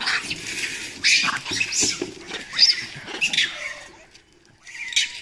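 Newly trapped monkeys in a wire-mesh cage trap giving several shrill screeches over about four seconds, then a short lull and one more screech near the end.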